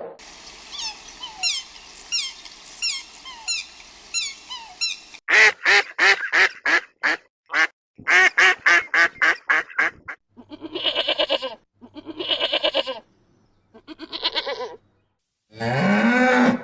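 Farmyard birds calling: high, falling chirps about twice a second, then several runs of rapid, harsh waterfowl calls with short silences between them. A lower, drawn-out call starts near the end.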